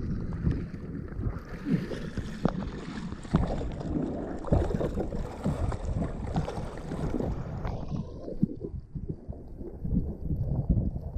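Water sloshing and splashing around a capsized windsurf rig lying in the water, with wind buffeting the microphone and irregular small knocks and splashes. About eight seconds in the sound turns muffled as the high end drops away.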